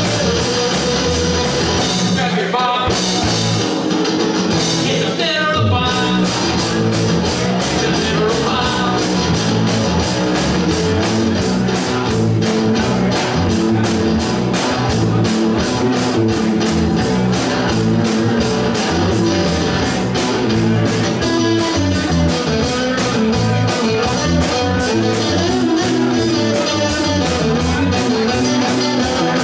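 A rock band playing live: distorted electric guitars over a steady, fast drumbeat, loud and unbroken.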